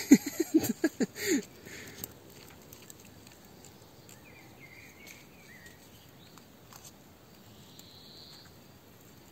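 A few short voice-like sounds in the first second and a half, then a quiet night garden with faint insect chirping and small soft rustles.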